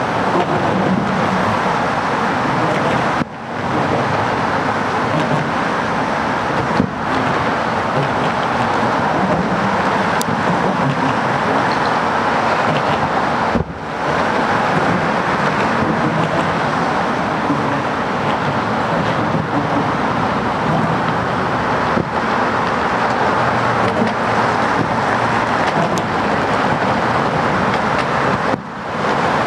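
Steady rushing roar of road traffic and wind, broken four times by firework bangs. Each bang is followed by a brief sudden drop in the noise that climbs back within half a second.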